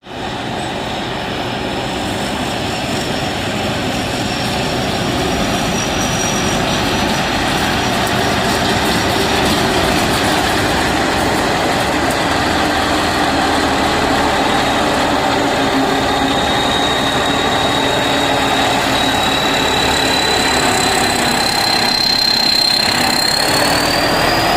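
Pan Charoen combine harvester's diesel engine and machinery running hard. A steady, loud mechanical din builds over the first ten seconds, with a thin high whine on top that slowly drops in pitch and then climbs again near the end.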